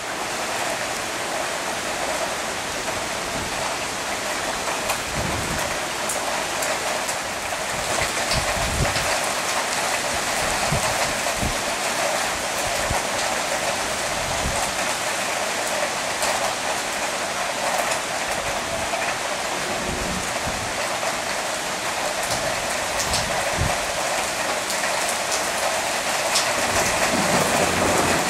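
Heavy downpour: the steady hiss of rain pouring onto paving and grass, with occasional short low thumps from about five seconds in.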